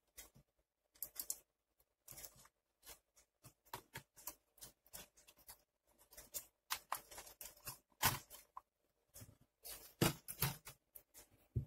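Irregular small clicks and scrapes of hard plastic being handled: tweezers and fingers working the battery and its connector out of a JIE-STAR Air Musha X9 drone's battery bay. The clicks come more often in the second half.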